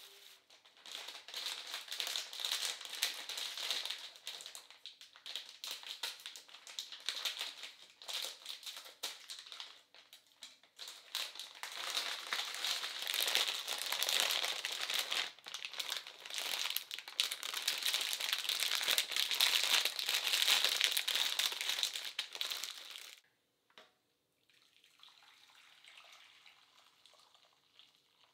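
Plastic packaging of dried rice noodles being handled, crinkling and crackling almost without pause for over twenty seconds. Near the end a quieter stream of water is poured from an electric kettle into a steel pan.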